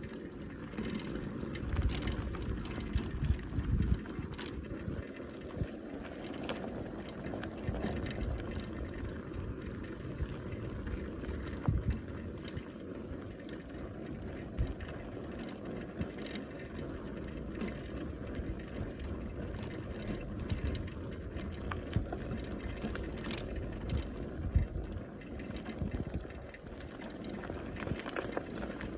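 Bicycle being ridden along a rough path: steady tyre noise with rattles and knocks over bumps, and a few heavier thumps.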